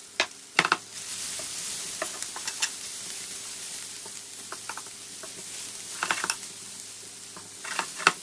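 Chopped liver and onions sizzling as they sauté in a pan, with a utensil clicking against the pan now and then as it is stirred.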